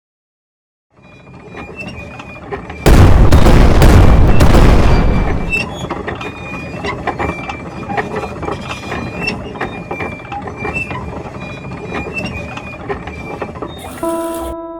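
Cartoon sound effects: a loud crashing burst about three seconds in, then a long run of mechanical rattling and clicking with short high squeaks.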